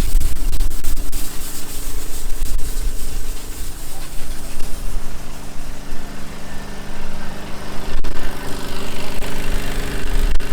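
A vehicle engine running steadily at an even speed, with a loud uneven low rumble underneath.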